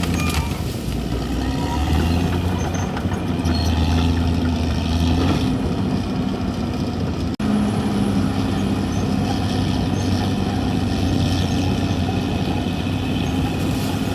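Caterpillar D6R XL bulldozer's diesel engine running steadily under load, with a low, even drone. The sound drops out for an instant about halfway through.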